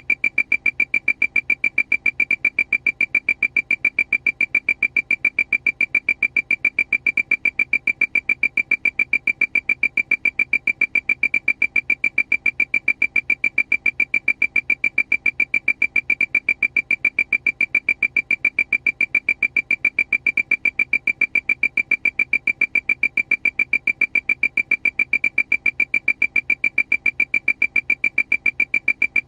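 Aircraft warning alarm: one high-pitched electronic beep repeating rapidly and evenly, several beeps a second, without a break.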